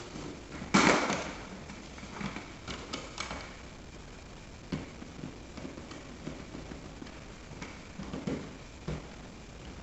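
Handling noise of coax and HDMI cables being fed through a plastic brush wall plate: a louder knock and rustle about a second in, then scattered light clicks and taps.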